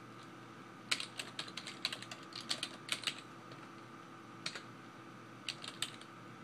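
Typing on a computer keyboard: a quick run of key clicks for about two seconds, then a pause and a few scattered keystrokes near the end.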